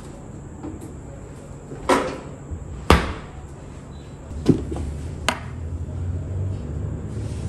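A few sharp knocks and clunks from a fridge door and containers being handled, the loudest about three seconds in as the door shuts. A low steady rumble sets in near the middle.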